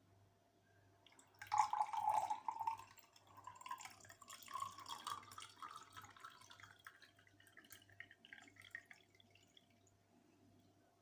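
Liquid pouring and splashing, starting about a second and a half in, loudest at first, then trickling and dripping away.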